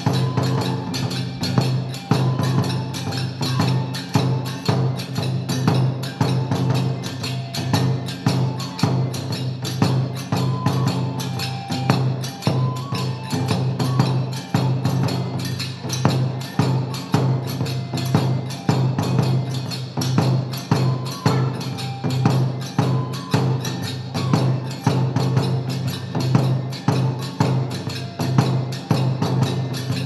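Kagura music for the Gongen-mai lion dance: taiko drum strokes and sharp wooden clicks in a steady, quick rhythm, with small hand cymbals ringing and short held notes from a bamboo flute above.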